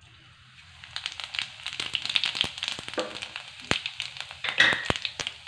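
Cumin seeds sizzling in hot mustard oil in a steel kadhai, the tempering (tadka) stage. The sizzle builds up about a second in, with frequent crackling and several sharper pops as the seeds fry.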